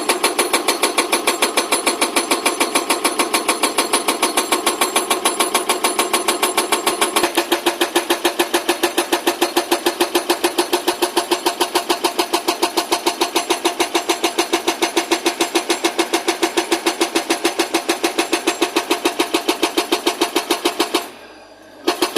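Hydraulic rock breaker on an L&T Komatsu excavator, hammering in a rapid, even rhythm of several blows a second. The hammering stops briefly about 21 seconds in, then starts again.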